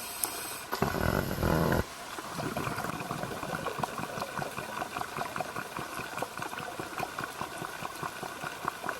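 Underwater ambience on a reef: a dense, even crackle of many tiny clicks, with a louder rushing noise for about a second near the start.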